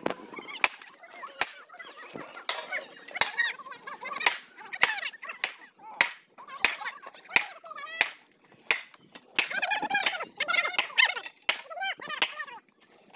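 Steel tools striking a railway rail and its fastenings in sharp, ringing metal blows, roughly one or two a second, as a track gang works. Men's voices call out between and over the blows.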